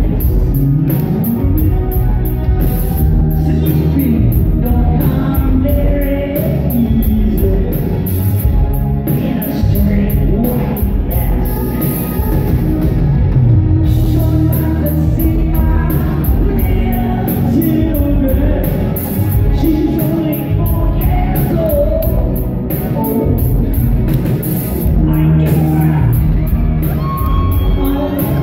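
A live rock band playing while a male lead singer sings into a microphone, heard from the audience.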